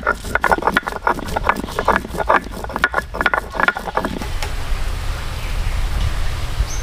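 Stone roller rubbed back and forth on a flat grinding stone, grinding red chillies to paste: coarse rasping strokes at about three a second. About four seconds in it cuts off abruptly, leaving a steady low rumble.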